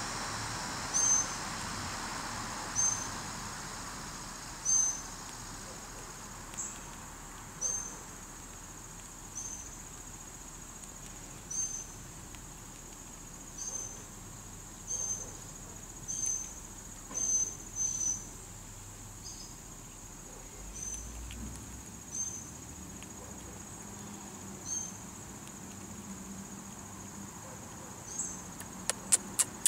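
Short, high-pitched chirps, each one brief, recurring irregularly every second or two over a steady high whine, with a fast run of sharp clicks near the end.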